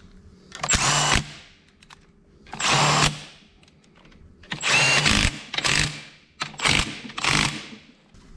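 Cordless drill spinning a socket extension in several short bursts, running down the mounting bolts of an engine's oil pump.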